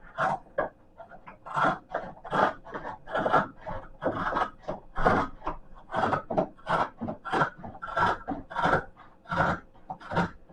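Craft scissors cutting through a rubberised treadmill belt: a steady series of short rasping snips, about two a second.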